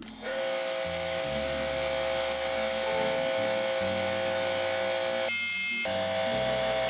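Cordless electric pressure washer running: a steady motor whine over the hiss of the spray. It cuts out for about half a second a little past five seconds in, then starts again, as when the trigger is let go and squeezed again.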